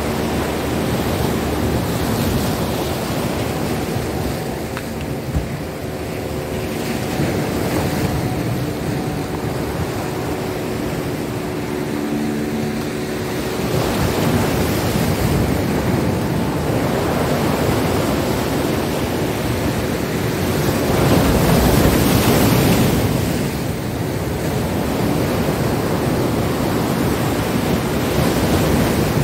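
Sea surf breaking and washing over shoreline rocks, with wind buffeting the microphone. The wash swells in surges, the loudest about three quarters of the way through.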